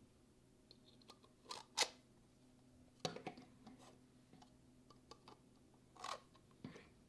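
3D-printed plastic model rocket parts handled and fitted together: a scatter of short clicks and clacks of plastic on plastic, the sharpest about two seconds in and a small cluster around three seconds.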